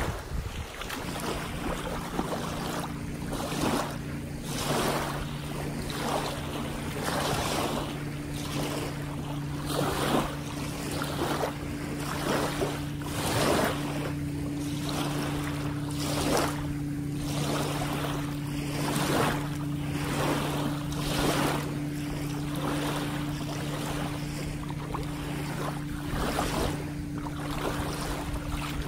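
Steady low hum of a boat engine over the lake, with water splashing in the shallows about once a second.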